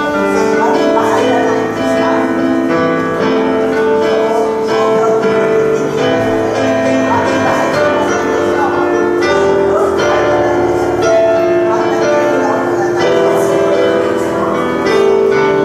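Grand piano played as an improvisation, a continuous flow of chords and melody notes.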